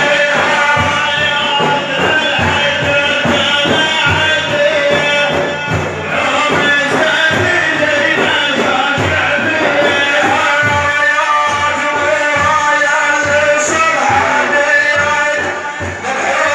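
Sufi devotional praise singing (a manqaba) with hand drums beating a fast, steady rhythm under a held, wavering melodic line.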